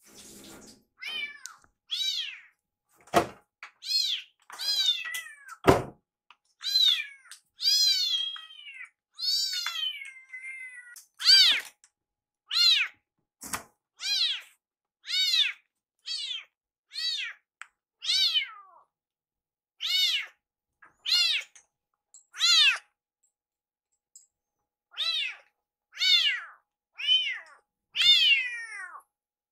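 Kittens meowing loudly over and over, high-pitched calls about once a second, each rising and then falling in pitch: crying for their food while it is being prepared. Two dull thumps sound a few seconds in.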